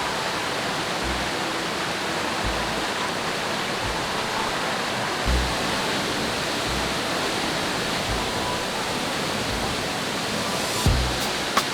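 Steady rushing of fresh water, a mountain stream or waterfall, as an even noise throughout, with a few low thumps.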